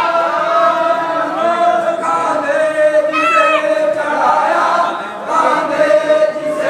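A crowd of men chanting a Muharram noha (lament) together, many voices holding long notes.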